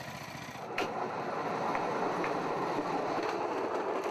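Bamboo train running on the rail track: its small engine and the platform's wheels clattering on the rails. A sharp knock about a second in, after which the running noise gets louder.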